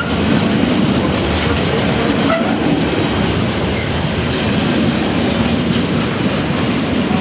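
Freight train of container flat wagons rolling past close by, a steady loud noise of wagon wheels running on the rails.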